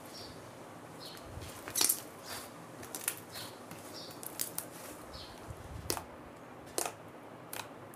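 White clay slime being squeezed and stretched by hand, giving irregular sharp clicks and pops, the loudest about two seconds in. Several short high chirps, like a small bird's, sound in the background.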